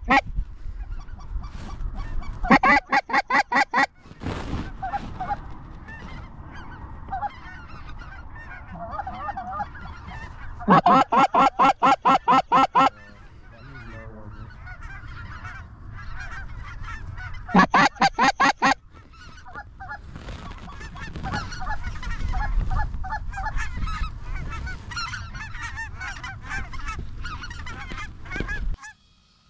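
A large flock of snow geese calling overhead, a constant chatter of many overlapping honks. Three times, about 3 s in, from about 11 to 13 s, and again around 18 s, a loud close burst of rapid, evenly spaced honks rises over the flock.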